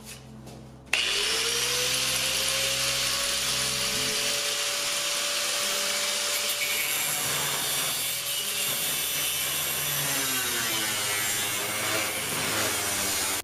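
Angle grinder with a cut-off disc starting up about a second in, its whine rising and then holding steady as it cuts, before stopping abruptly at the end.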